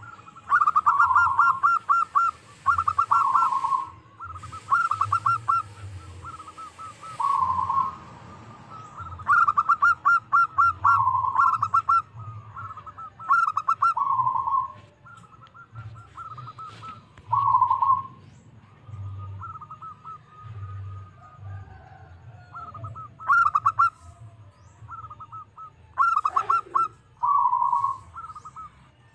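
Zebra dove (perkutut) cooing: a series of phrases, each a quick run of stuttering notes that ends in a lower rolling coo, with short pauses between them.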